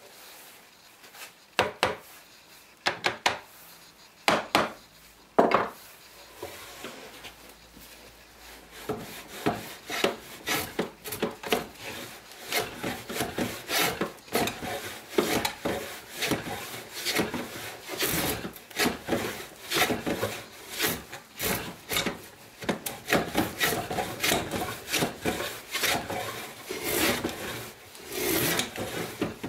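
Antique wooden plough plane cutting a groove along the edge of a board: a few sharp knocks at first, then from about nine seconds in a steady run of quick, short planing strokes, the iron rasping through the wood.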